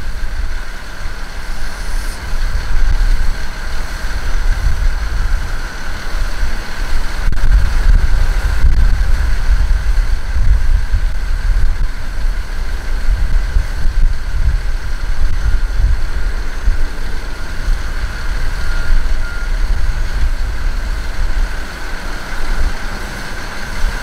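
Vehicle noise heard from inside a moving car: a loud, gusting low rumble of road and wind noise, with a steady high whine over it.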